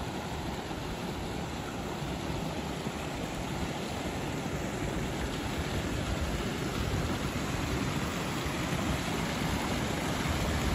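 Creek water rushing over a small log cascade, a steady hiss that grows gradually louder as it draws closer.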